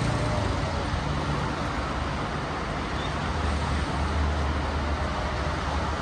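Steady highway traffic noise from cars and trucks streaming along a multi-lane toll road, with a low rumble that swells slightly past the middle. No bus horn sounds.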